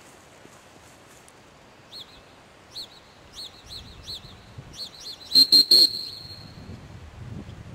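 Dog-training whistle blown in a string of short chirping toots, ending in three loud, quick blasts about five seconds in. This is the comeback whistle calling a Boykin spaniel back from the bumper pile.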